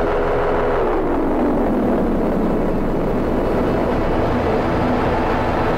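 Live electronic noise music: samples from a Bastl MicroGranny run through a Boomerang looper and a Make Noise Strega, making a dense, grainy drone. About a second in, its pitch slides down, then holds steady.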